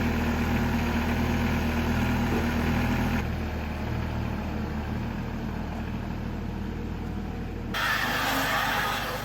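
An engine running steadily at idle. The sound changes abruptly about three seconds in and again near the end, where the low engine note fades and a louder hiss takes over.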